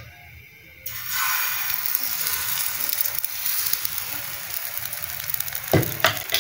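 Egg-and-flour batter poured onto a hot, oiled iron tawa, breaking into a sudden sizzle about a second in and frying steadily. Two short knocks near the end.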